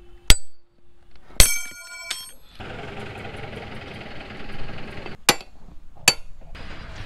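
Steel tools striking railway track steel: about five sharp metallic clanks. The one about a second and a half in rings on with a bell-like tone for most of a second. A steady background noise comes in a little after two seconds in.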